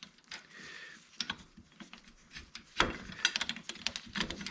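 Irregular light clicks and ticks of metal bolts and hand tools being handled, coming in quick clusters from about three seconds in.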